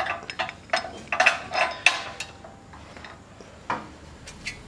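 Steel U-bolt and clamp plate of a hitch lock clinking and scraping as they are fitted by hand around a square steel tube: a quick run of metallic clicks that thins out after about two seconds, with a few single clinks near the end.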